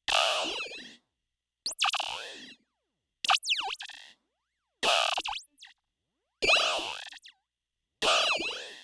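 Analog synthesizer notes through a voltage-controlled vowel formant filter: six twangy, boing-like electronic tones repeating about every second and a half. Each starts suddenly and dies away within a second, and some swoop in pitch.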